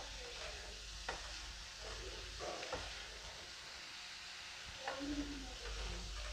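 Faint scraping and swishing of a paintbrush working paint from a plastic bucket onto a wall, with a few light knocks.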